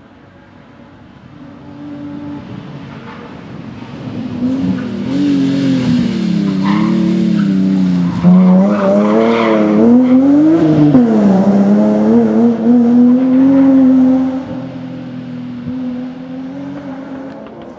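BMW M3 (E36) rally car's straight-six engine at full stage pace, its revs rising and falling repeatedly with throttle lifts and gear changes as it approaches and passes. It is loudest through the middle and fades over the last few seconds as the car pulls away.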